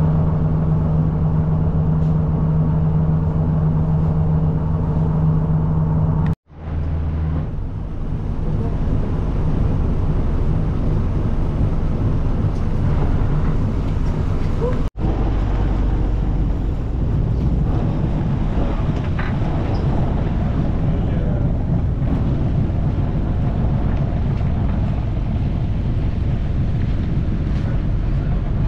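Fishing boat's engine running steadily, heard from on board: a low hum with a steady rushing noise over it. The sound drops out abruptly twice, about six and fifteen seconds in.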